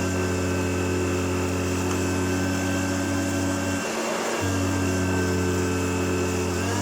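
1988 Hoover Turbopower U2332 upright vacuum cleaner running steadily during a cleaning demonstration, a constant motor hum with a thin high whine. Its low hum briefly drops out about four seconds in, then returns.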